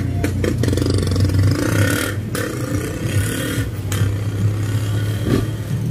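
Car engine and road noise heard from inside the cabin while driving, with a couple of sharp knocks.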